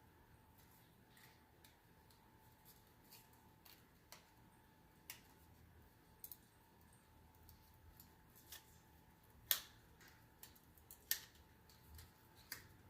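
Scattered small clicks and snaps of hands working at a plastic SD card package to get it open, with two sharper snaps late on.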